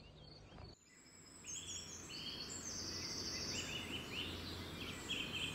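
Small birds chirping and trilling repeatedly over a steady hiss of outdoor background noise, coming in after a brief quiet start.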